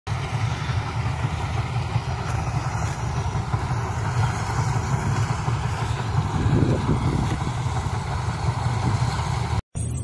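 Combine harvesters running steadily while harvesting maize, a continuous low engine rumble; the sound cuts off abruptly just before the end.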